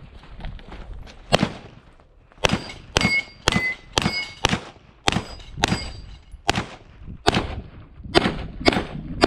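Handgun shots fired in a quick string, about half a second apart, a dozen or more, with steel targets ringing briefly after several of the hits in the middle of the string.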